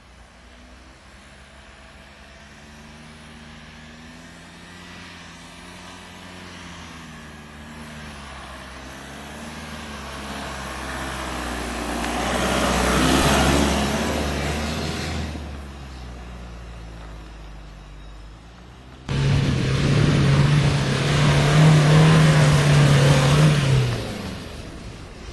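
Skoda Yeti 4x4 engine working over a loose sand track. Its revs rise and fall as the car comes closer, with tyre and sand noise swelling as it passes close, then fading. After an abrupt cut, a Yeti pulls away hard, engine held at steady high revs while its wheels churn the sand, and the sound stops suddenly near the end.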